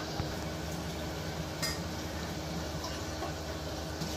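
A hand stirring and squishing ground coconut-and-tomato paste into tamarind water in a steel bowl, with a light clink against the bowl about one and a half seconds in, over a steady background hum.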